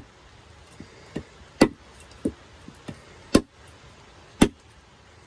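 Firewood being chopped with a blade: a heavy, sharp strike on wood every second or so, with lighter knocks in between. The wood is wet, being cut down to its dry core for a fire.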